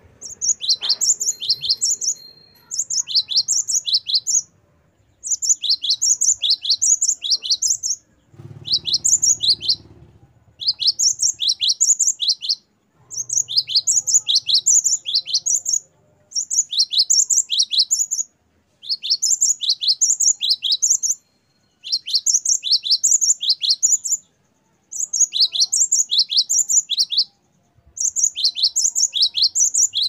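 Great tit (gelatik batu) singing: high, quick whistled notes repeated in phrases of about two seconds, about three notes a second, phrase after phrase with short pauses between.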